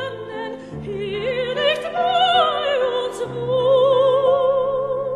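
Operatic-style background music: a high voice sings long notes with wide vibrato over sustained low accompanying chords. The melody climbs about two seconds in, then falls back.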